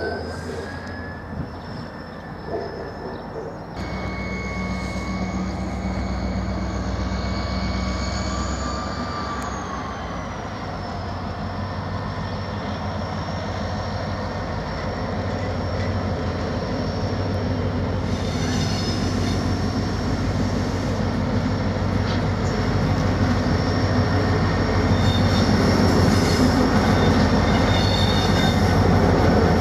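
Renfe class 333 diesel locomotive drawing a train of empty open freight wagons at slow speed, its diesel engine droning and growing louder as it approaches, with the engine note stepping up about four seconds in. High, wavering wheel squeal from the wagons on the curving track runs over it, with some clanks toward the end.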